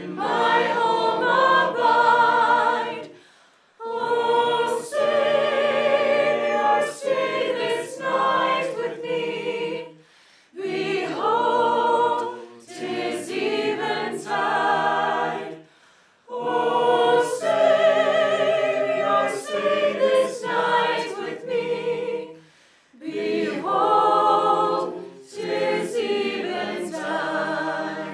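Small mixed choir of men and women singing a hymn a cappella, in sung phrases of about five or six seconds with short breaks between them.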